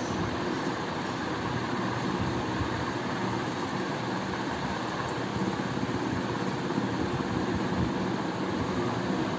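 Steady machine hum with a rush of air, as from a running fan, unchanging throughout.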